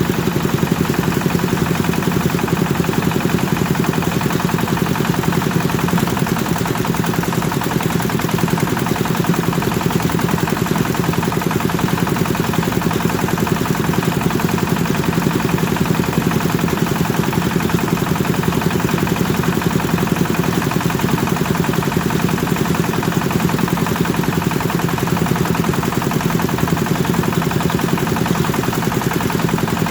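Kubota engine driving a rice thresher, running steadily at constant speed with a fast, even pulse of firing strokes.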